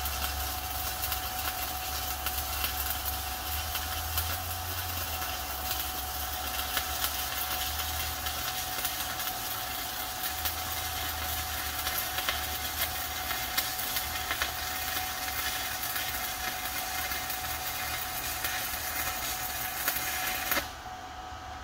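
Stick welding arc from a Titanium Unlimited 200 welder: a steady crackle and sizzle with rapid small pops over a low hum. It cuts off suddenly near the end as the arc is broken.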